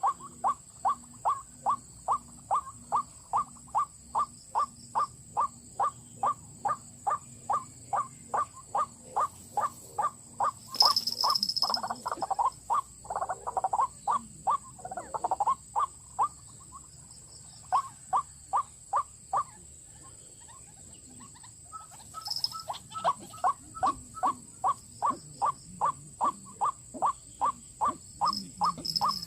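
White-breasted waterhen calling: a monotonous series of short, evenly spaced notes, about three a second, broken by a burst of harsher, jumbled calls around the middle and two short pauses before the steady series resumes.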